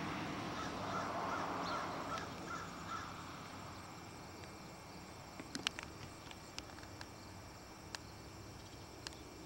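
A bird calling in a quick, even run of short calls over the first three seconds, over a steady trill of crickets or other insects. A few sharp clicks come in the second half.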